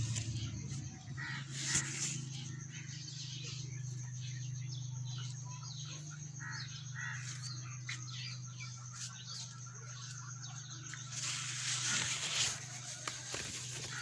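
Leaves rustling and brushing against a handheld phone, with many short scrapes and knocks, over a steady low hum. Birds call faintly now and then.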